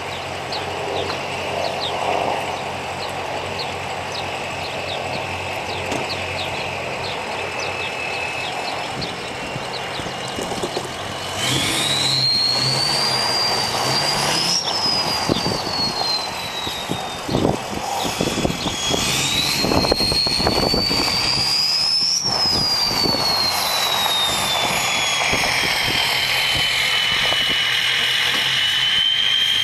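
Ford 6.0L Power Stroke V8 turbo-diesel in an F250 with a 4-inch straight-pipe exhaust, its turbo whistle rising as the turbocharger spools up. The engine runs steadily for about the first ten seconds. The whistle then climbs twice, each time falling away after a few seconds, and settles into a lower steady whistle near the end.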